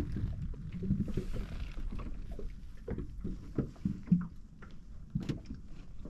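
Small waves lapping and slapping against the hull of a small boat drifting on a light swell, with scattered irregular light knocks.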